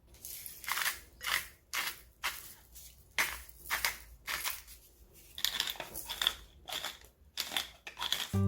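Crisp vegetables being cut, with a string of short crunchy strokes, roughly two a second and irregularly spaced.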